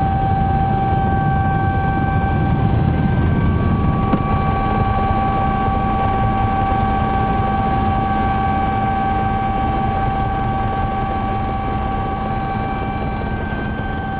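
Helicopter cabin noise in flight: a steady high whine of several fixed tones over dense low rotor and engine noise. The low noise is heaviest for the first few seconds, then eases a little, leaving a steady hum.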